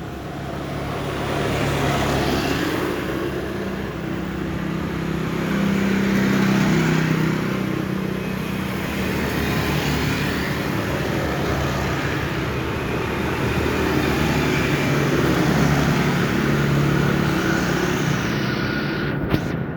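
A motor vehicle's engine running, its pitch and level slowly rising and falling, with a brief sharp click near the end.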